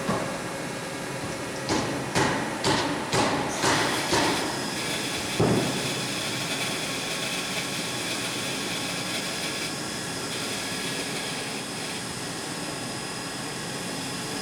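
Takisawa MAC-410V vertical machining center with its spindle running at 1,000 RPM: a steady machine hum with several fixed whining tones. Near the start there is a run of about six sharp knocks, roughly two a second, then one heavier thump.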